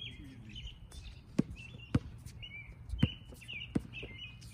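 A basketball bouncing on a hard outdoor court: four sharp bounces spaced half a second to a second apart, as a player dribbles. Birds chirp throughout.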